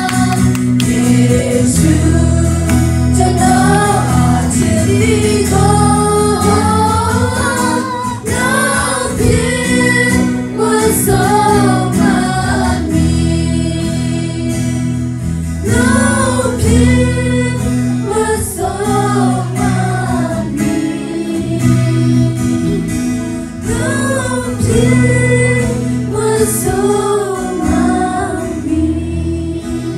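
A worship group of women's voices and a man singing a gospel hymn together into microphones, over an instrumental accompaniment with sustained low bass notes.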